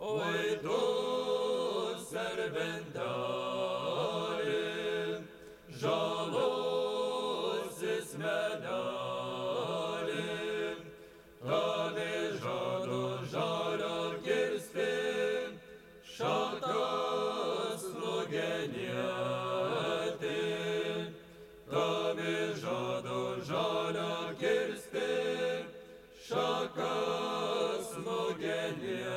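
Lithuanian folk ensemble singing a folk song, the voices moving in sung phrases of about five seconds with short breaks for breath between them.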